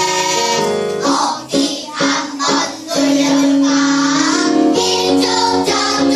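A children's song: music with children singing, the notes held and changing in sung phrases.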